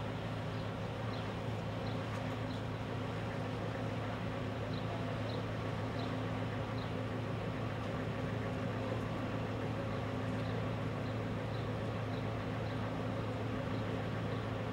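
A steady, even mechanical hum with a few faint, short high ticks scattered through it.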